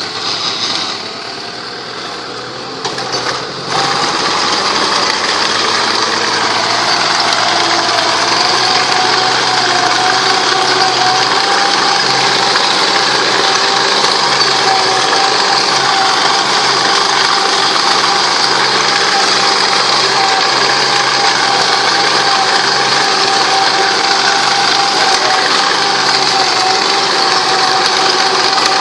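Tractor engine running steadily under load as it drives a cassava harvester's digger and chain conveyor through the soil, with a held whine over it. It gets louder about four seconds in and then stays level.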